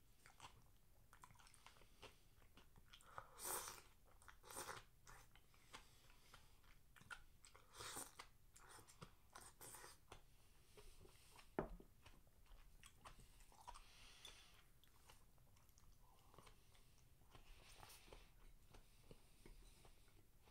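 A person eating at close range: chewing, with short sipping sounds from a wooden soup bowl held to the mouth. A single sharp knock a little past halfway is the loudest sound.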